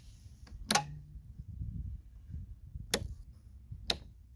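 Rocker switches on a marine switch panel being flipped on, three sharp clicks spread over a few seconds, the first followed by a brief low hum.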